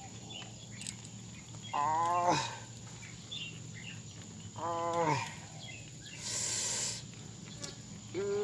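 Three drawn-out voiced calls, about three seconds apart, each dropping in pitch as it ends. A short hiss comes between the second and third.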